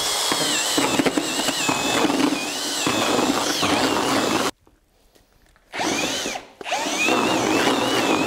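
Power drill with a paddle mixer stirring a wet mash of paper pulp and wood shavings in a bucket, its motor whine wavering with the load. It stops for about a second just past halfway, runs briefly, dips again, then starts up and runs on.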